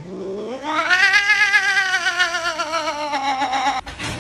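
Domestic cat giving one long, drawn-out yowl that rises at the start, wavers in pitch and slowly sinks, then cuts off suddenly near the end, followed by a brief knock.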